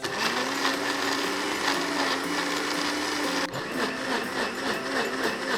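Countertop blender starting up and running, blending ice with mango and yogurt. Its motor whine is steady at first, then about three and a half seconds in the pitch starts wavering up and down.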